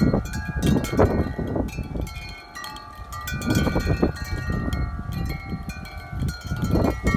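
Wind chimes ringing in strong, gusting wind, with the wind buffeting the microphone as a low rumble. The gusts ease briefly about two and a half seconds in and then build again.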